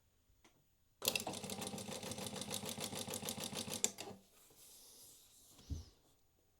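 Industrial walking foot sewing machine stitching a run of about three seconds, about eight stitches a second, then stopping abruptly. A low thump follows near the end.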